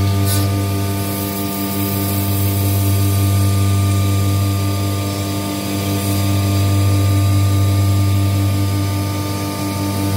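CNC router spindle milling a plastic sheet: a loud, steady machine hum with a strong low drone and overtones, easing slightly about every four seconds as the cutter works along the sheet.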